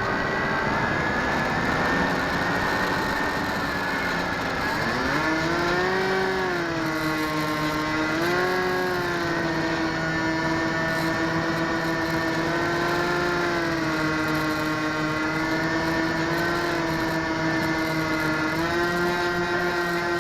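Electric motor and propeller of an RC Stratos model airplane running, picked up by an onboard keychain camera: a steady whine that drops in pitch about four seconds in, climbs back, then holds, stepping up slightly near the end.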